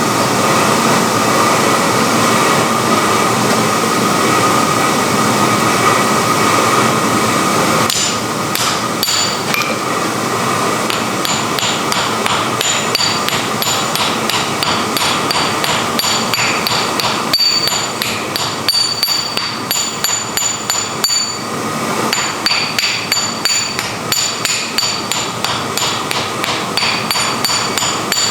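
Steady rushing noise with a faint hum, then from about eight seconds in, rapid ringing hammer blows on iron over an anvil, several a second, broken by a couple of short pauses.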